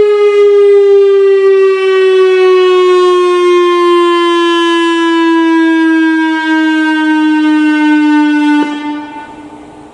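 Analog Whelen WPS-3000 electronic storm siren sounding a single tone that slowly falls in pitch. It cuts off near the end, and its echo dies away over about a second.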